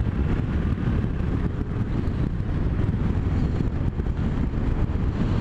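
Yamaha Tracer 700 on the move, heard from a helmet microphone: a steady wind rumble with the bike's parallel-twin engine running underneath.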